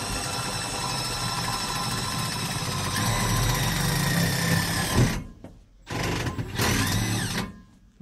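Cordless drill running steadily for about five seconds as it drives a self-drilling Tek screw into steel strut, stopping abruptly, then running again for about a second and a half.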